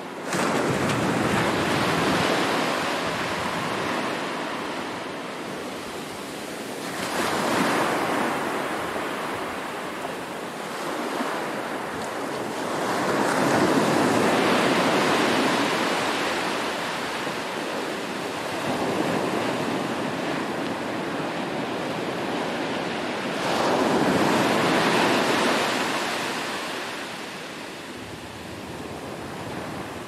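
Small surf breaking on a sandy beach: a rushing wash that swells and fades as each wave comes in. Four surges, about every six to ten seconds.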